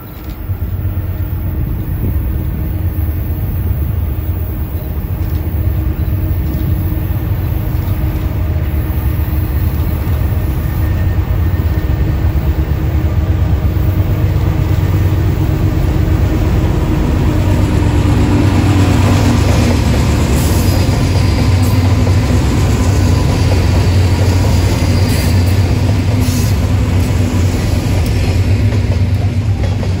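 A freight train headed by four GE diesel locomotives approaches and passes at close range: the rumble of the locomotives' engines builds steadily, the engine tone drops in pitch as they go by, and the freight cars then roll past.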